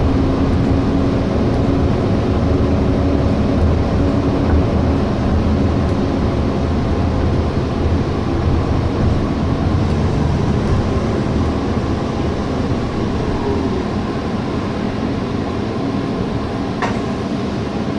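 Steady engine and road noise heard from inside a moving city bus.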